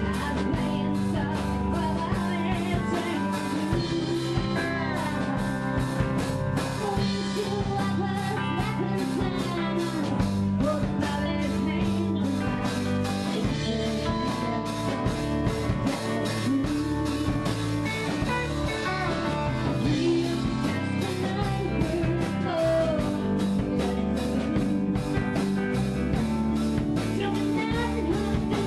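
Live rock band playing a blues-rock number: electric guitar, bass and drums with a steady beat, and a singer.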